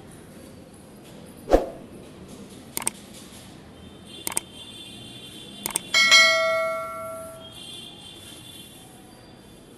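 Subscribe-button sound effect: a soft thump, three quick double mouse clicks about a second and a half apart, then a bright notification-bell ding that rings out for about a second and a half. Faint background music runs underneath.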